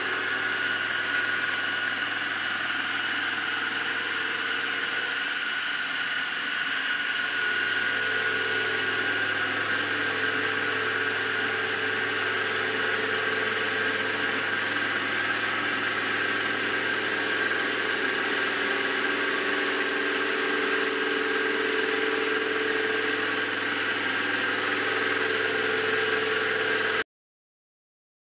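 Titan TM20LV CNC milling machine cutting an aluminium block: a steady high whine from the spindle and cutter, over lower tones that slide slowly up and down as the cut goes on. The sound cuts off abruptly about a second before the end.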